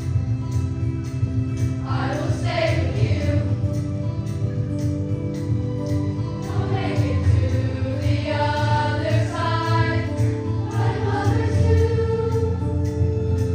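Youth choir singing in harmony, holding long sustained chords that swell and ease.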